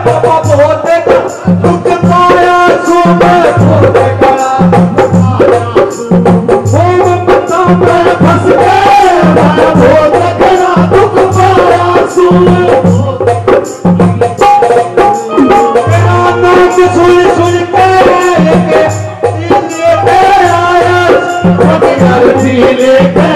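Live Haryanvi folk music: a harmonium melody over a steady, regular hand-drum beat, with other percussion.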